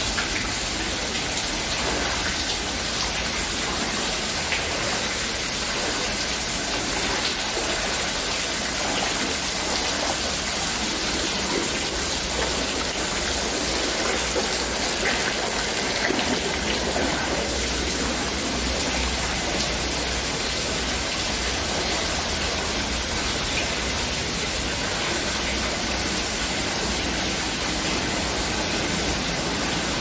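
Steady rushing of a fast-flowing stream through a narrow rock gorge, running high after rain, with water dripping from the rock walls.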